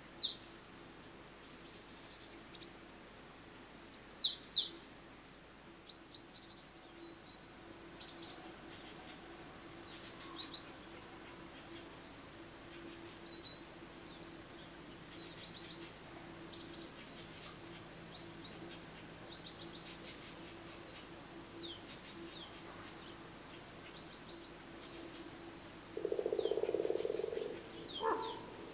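Small birds chirping and singing, many short calls and trills throughout, over a faint steady low hum. Near the end a louder, low sound lasts about a second and a half.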